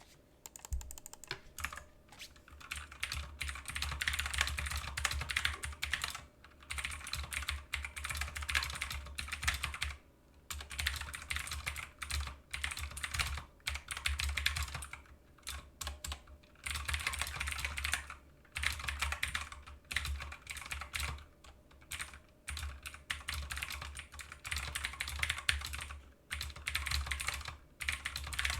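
Mechanical keyboard with Cherry MX Blue clicky switches being typed on quickly, a rapid clatter of sharp key clicks in runs of a few seconds with short pauses between.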